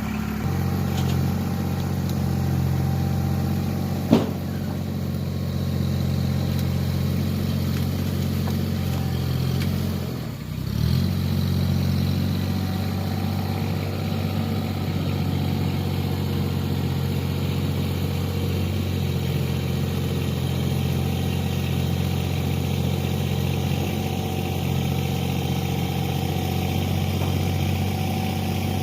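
Tractor engine running steadily under load, with a single sharp knock about four seconds in. Around ten seconds in the engine briefly dips and then picks back up.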